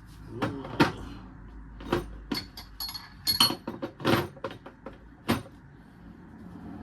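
Metal sockets clinking against each other and the case as a socket set is picked through: about a dozen sharp clinks, some ringing briefly, the last about five seconds in.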